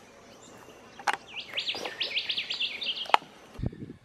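A bird sings a fast run of repeated high, sweeping chirps for nearly two seconds. Two sharp clicks frame it, the second, near the end, the loudest sound.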